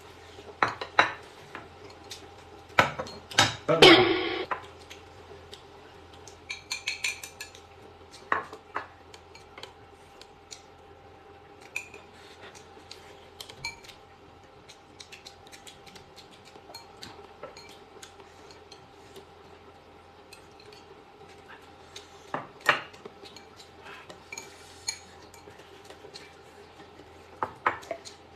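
Chopsticks and tableware clinking against a stainless-steel pot and bowls during a meal: scattered short clinks and clatters, the loudest cluster about four seconds in. A faint steady hum runs underneath.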